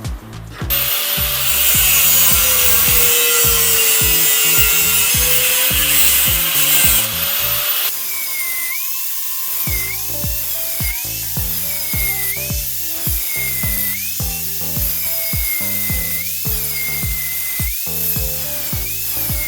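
A power tool cutting or grinding for about seven seconds, a loud, hissy noise with a wandering pitch, over background music with a steady beat. After that the music carries on with a high whine that rises and dips in time with it.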